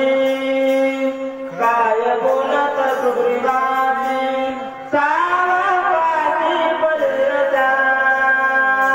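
A man singing a devotional recitation in long held notes, each new phrase gliding in, once about one and a half seconds in and again about five seconds in, over a steady lower drone.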